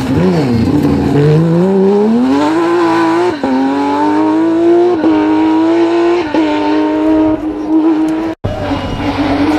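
Porsche 911 GT3 rally car's flat-six engine pulling hard. It drops low at first, then climbs steadily in pitch, with several short dips at gear changes. It cuts off abruptly near the end.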